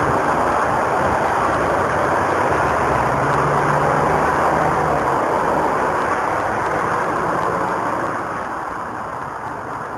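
Steady street traffic noise with a vehicle engine running past, growing quieter after about eight seconds.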